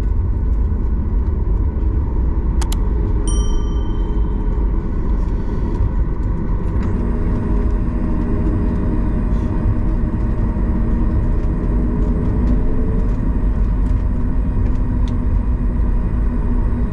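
Steady low rumble of a Boeing 737 MAX 8's cabin. About three seconds in there is a click, then a single chime that rings out briefly.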